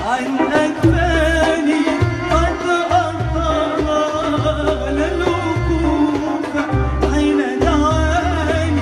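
A woman sings an Arabic song live into a microphone, her voice wavering and ornamented, over a Middle Eastern band with a steady hand-drum beat.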